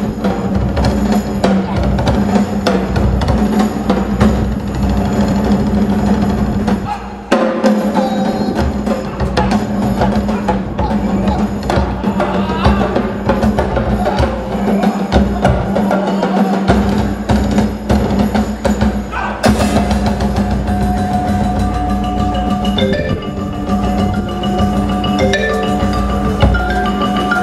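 Live percussion ensemble playing through a PA: mallet instruments such as marimbas and drums over a steady low tone. About two-thirds of the way through the music changes to ringing, held mallet notes.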